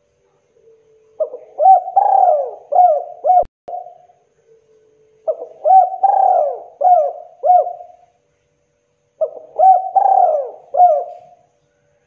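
Spotted dove cooing: three phrases about four seconds apart, each a run of several short coos that rise and fall in pitch.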